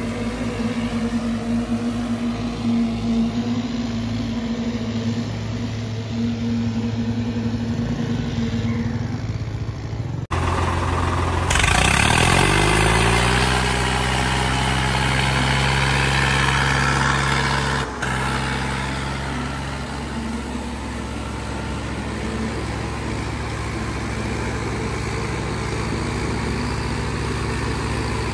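Farm tractor diesel engines running hard under load, pulling against each other in a tractor tug-of-war. About ten seconds in the sound cuts, and then an engine revs up, its pitch rising over a couple of seconds before it holds steady.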